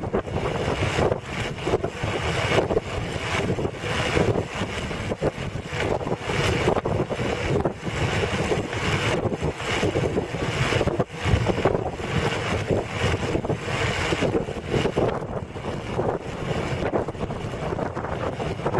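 Wind buffeting the camera's microphone while riding along a road, a continuous gusting rush with a low rumble underneath.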